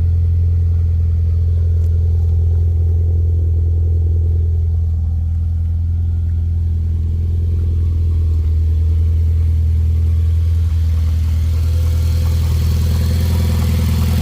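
Mitsubishi Lancer Ralliart's turbocharged four-cylinder engine idling steadily, free of rattle now that the cracked manifold-to-turbo gasket has been replaced. Near the end a light chatter comes in, the normal chatter of its SST twin-clutch gearbox.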